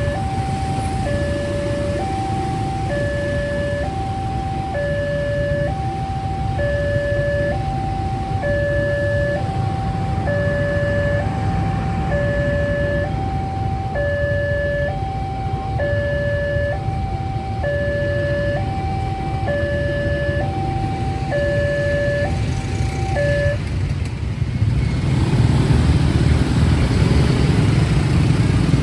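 Electronic railway level-crossing alarm sounding a two-tone high-low warning, about one cycle every two seconds, over a steady low rumble of vehicle engines. The alarm cuts off about 23 seconds in, and the engine noise then rises.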